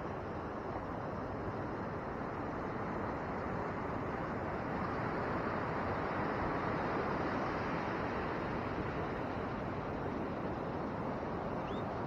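Pacific surf breaking and washing up the beach: a steady rush that swells a little midway.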